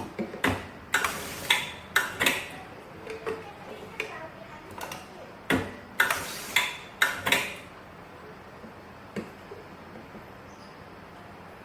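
MT-180 semi-automatic round-bottle labeling machine working through its cycles, with sharp clicks and clatter in two bursts about five seconds apart and a single click near the end.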